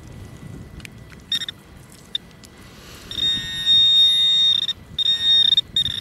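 Handheld metal-detecting pinpointer probed in a wet hole: one short high beep about a second in, then from about halfway a loud, continuous high-pitched tone, broken twice briefly, which means the probe is right on a metal target. A low rustle of soil handling sits underneath.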